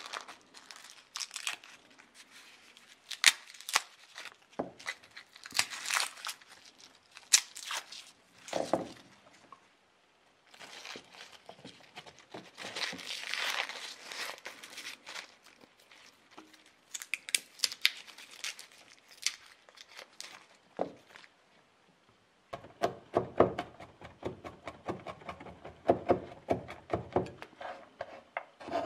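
Dry garlic skins crackling and tearing as a head of garlic is broken apart and the cloves are peeled by hand. In the last several seconds, a cleaver chops garlic on a wooden cutting board in a quick run of repeated strokes.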